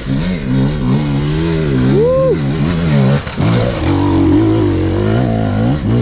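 Dirt bike engine running under load, its pitch rising and falling as the throttle is worked.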